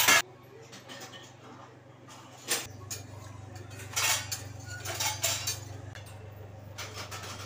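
A steel ladle clinking and scraping against the sides of a pressure cooker as khichadi is stirred, in several separate short clatters.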